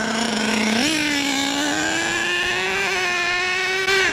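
HPI Savage XL's K5.9 two-stroke nitro engine running loudly as the truck drives. It is rich on the factory needle settings. The pitch sits low briefly, rises about a second in and keeps climbing slowly, then drops suddenly near the end, which sounds like the automatic transmission shifting up.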